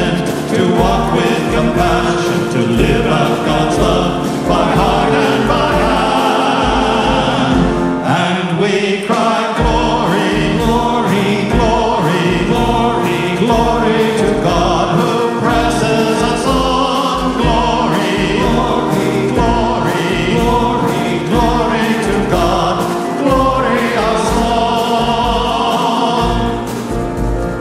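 Choral music: a choir singing over instrumental accompaniment with a steady beat.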